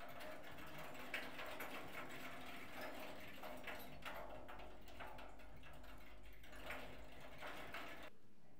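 Kinetic sound sculpture of a rusty oil drum with spoons and wire, driven by a motor: faint, irregular clinking and rattling of the spoons over a steady low motor hum.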